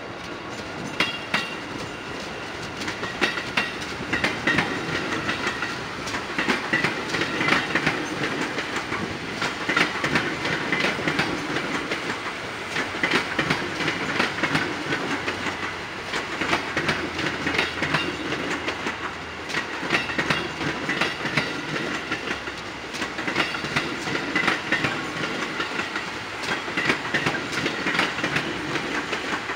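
KRL Commuter Line electric commuter train rolling slowly past, its wheels clicking and clacking over the rail joints in an uneven run of knocks over a steady rumble.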